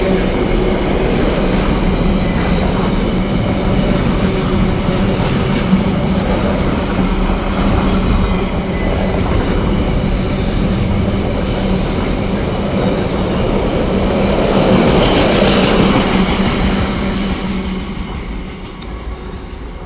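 A long, heavy freight train of about 1,475 tonnes rolls past, its wagons clattering steadily over the rails. It swells a little louder with some high-pitched wheel noise about three-quarters of the way through, then fades near the end as the last wagons go by.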